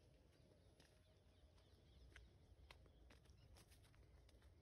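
Near silence: a faint low background rumble with a few faint clicks.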